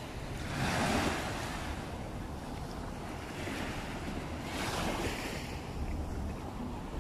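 Small waves washing up on a sandy shore, two surges of surf about four seconds apart, over a steady low rumble of wind on the microphone.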